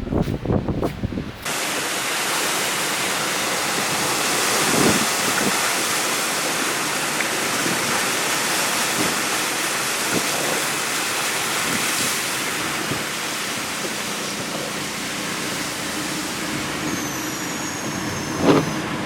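Steady rushing hiss of hurricane rain and wind, which starts abruptly just over a second in.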